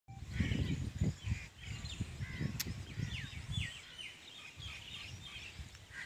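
Small birds chirping in quick, short calls and trills, over gusty wind rumbling on the microphone.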